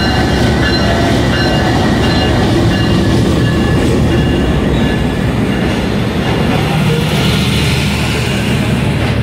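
Diesel-electric locomotive idling at a standstill: a steady loud engine rumble with an even low hum and a thin high whine, and no wheel noise.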